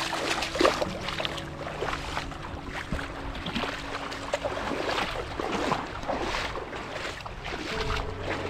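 Footsteps wading through shallow seawater over soft sand, a splash with each step, about one a second or a little faster.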